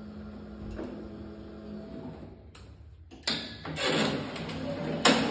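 Inclined wheelchair platform stair lift running with a steady low hum as it carries the platform down the stairs. The hum fades out a bit over two seconds in; about three seconds in a louder, uneven clatter starts, with a sharp knock near the end.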